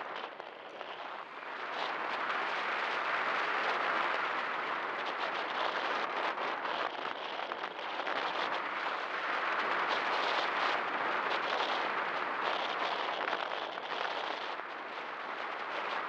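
Wind noise from air rushing past an RC glider's onboard camera in gliding flight: a steady hiss with crackling buffets, quieter for the first second and a half.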